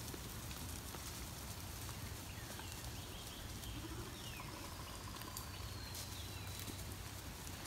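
Quiet outdoor background with a steady low hum and a few faint high chirps and whistles; no clear sheep bleat.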